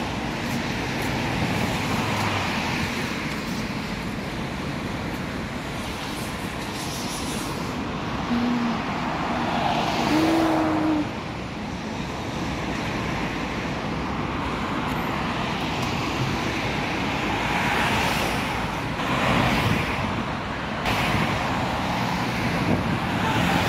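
Road traffic on a multi-lane street: cars passing, the tyre and engine noise swelling as each one goes by. Two short pitched tones sound near the middle.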